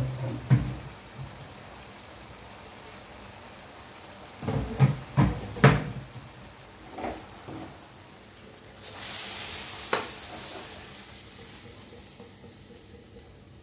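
Glass pot lid and cookware clanking several times, then, about nine seconds in, a hissing sizzle lasting about two seconds as tomato sauce is poured from a frying pan into a hot pot of browned meat.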